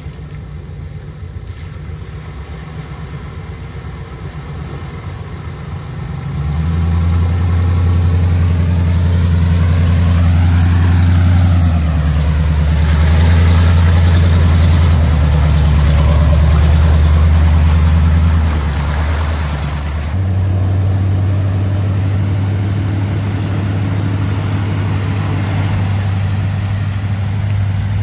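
Off-road 4x4 engines running at low speed as a wrecker truck and a Jeep crawl through mud puddles on a trail; the engine sound gets much louder about six seconds in and changes abruptly a few times, with a brief rising and falling whine near the middle.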